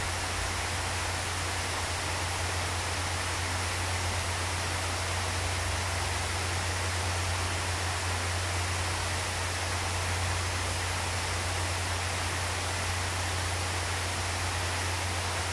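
Steady splashing rush of pool fountains and a water cascade falling into the pool, with a steady low hum underneath.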